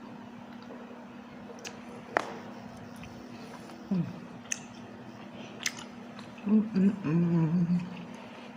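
Close-up eating sounds of buffalo chicken wings being chewed: scattered wet mouth clicks and smacks. Near the end comes a wordless, wavering hummed "mm" of enjoyment, over a steady low hum.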